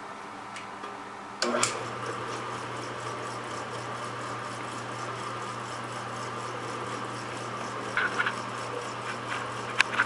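Bench drill press switched on with a click about one and a half seconds in, then its motor running steadily with a 1¼-inch spade bit spinning free, not yet cutting. A few light knocks near the end.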